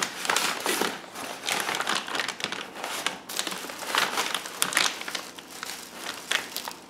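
Clear plastic bag over a flat-screen TV crinkling and rustling in irregular bursts as hands grip and shift it while a cardboard packing piece is slid into place.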